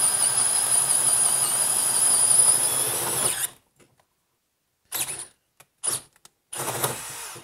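DeWalt 12V Xtreme brushless drill/driver in low gear (speed 1), driving a spade bit through a pine board with a steady high motor whine under load. It stops suddenly after about three and a half seconds. Three short bursts of running follow near the end.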